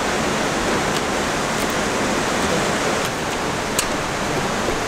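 Waterfall rushing steadily, an even wash of falling water, with a single sharp click about four seconds in.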